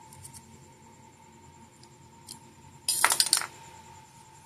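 Small metal parts or a tool clinking and rattling briefly against a hard surface about three seconds in, with a few faint ticks before it, while the pedal's bolts are being tightened.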